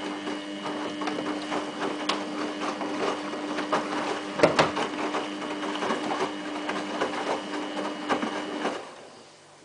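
Samsung WF8804RPA washing machine turning its drum in the rinse: a steady motor whine with irregular knocks and clatter from the laundry tumbling. The drum stops near the end.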